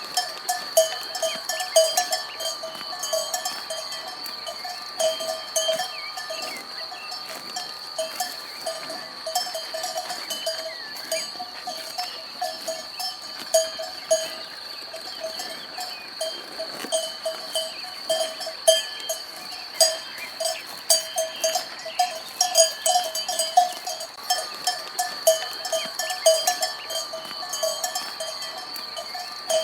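Cowbells on grazing cows clanking irregularly as the animals move, sometimes in quick clusters of strokes, each ringing at the same few metallic pitches.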